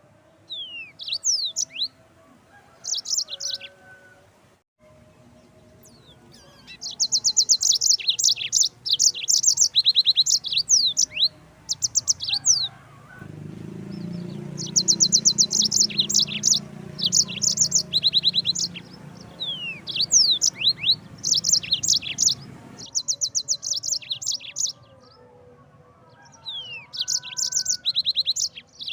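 Yellow-fronted canary (Mozambique canary) singing: fast high trills of repeated notes mixed with quick sliding whistles, in phrases broken by short pauses. A low rumble underlies the song from about a third of the way in until about three quarters through.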